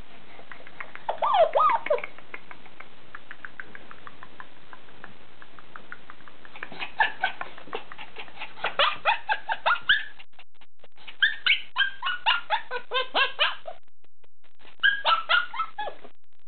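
Bernese Mountain Dog puppy yelping in quick high-pitched runs, in four bouts with short pauses between them.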